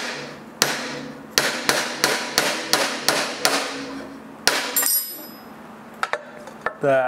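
A mallet knocking a wooden muntin bar down into an intersecting half-lap miter joint, driving the crossing pieces together into a tight fit: a run of about nine sharp knocks, about three a second at their fastest. A brief high ringing follows the last loud knock.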